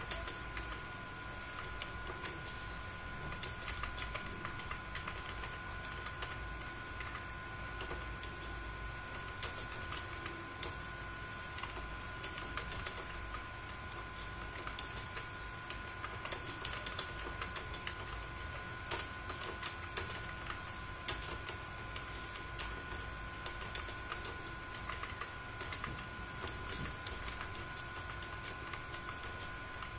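Typing on a computer keyboard: irregular keystroke clicks in quick runs with short pauses, over a steady faint high hum.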